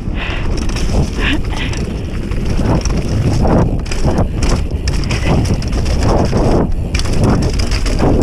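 Mountain bike descending a rough dirt and mud trail at speed: wind buffeting the microphone and tyres rumbling over the ground, with irregular knocks and rattles from the bike as it hits bumps.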